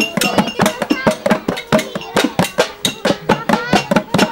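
Lively drum and percussion music, the drums struck in a quick steady beat of about five strokes a second, with voices over it.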